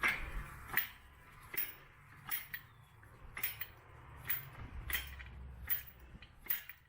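Evenly spaced metallic clicks, about one every three quarters of a second, from the gear lowering a 2008 Jeep Compass's front subframe.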